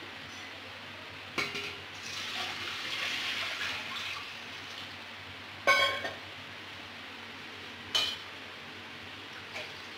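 Metal ladle in a large aluminium kadai of liquid kadhi, knocking against the pot with a few ringing clanks. The loudest clank comes about halfway through, another comes two seconds later, and a stretch of stirring scrape and slosh falls between the first two knocks.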